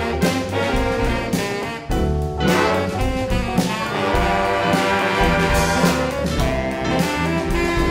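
Community big band playing a jazz-funk number: brass and saxophone sections over drums. A short break comes about two seconds in, followed by long held horn chords.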